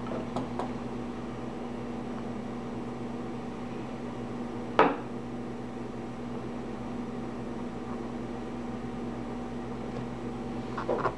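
Steady electrical hum with a few fixed tones, broken by one sharp click a little before the middle and a few small clicks near the start and end.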